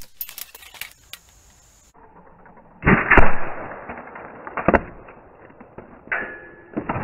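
Spring-loaded airsoft grenade rigged with pull-string prank charges going off. A few light clicks come in the first second. About three seconds in there is a loud sharp crack and a second of clatter, and further sharp snaps follow near five and six seconds.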